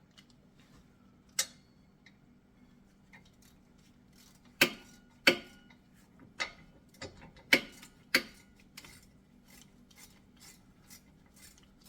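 Sharp metal clicks and clinks of brake caliper hardware being handled as the caliper bolts are started in their threads by hand. Several loud clicks come in the middle, followed by faint, evenly spaced ticks near the end.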